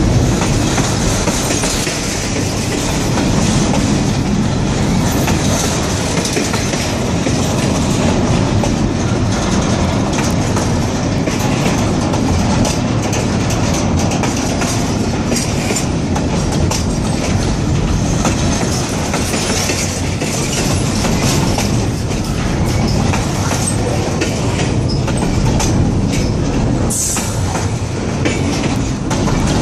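Double-stack container well cars rolling slowly past on jointed rail: steel wheels clicking over the rail joints while the cars creak under their weight. A brief high wheel squeal rings out near the end.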